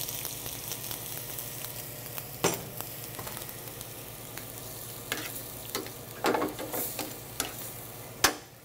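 Cream sizzling in a hot stainless sauté pan of fettuccine and rendered bacon fat, a steady hiss that eases slightly. Metal tongs toss the pasta, clicking and scraping against the pan several times, sharpest about two and a half seconds in and just before the end.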